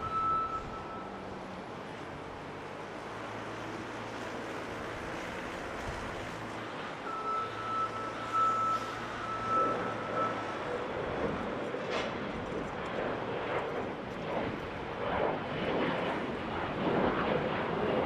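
Airport jet noise: a steady high whine comes and goes over a background rumble, then from about halfway a jet's engine roar builds and wavers as an Embraer E175 regional jet takes off and climbs away.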